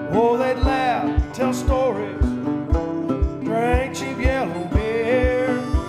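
Country song: a melody line in two phrases over acoustic guitar, with a steady kick-drum beat about twice a second.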